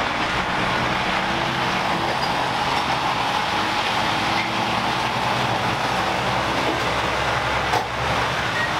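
Diesel tipper lorry driving past close by, its engine running steadily, with a brief knock near the end.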